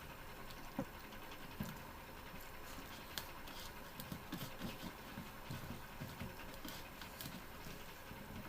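A person chewing and eating rice and fish curry, with irregular soft mouth sounds clustered in the middle and a few short sharp clicks.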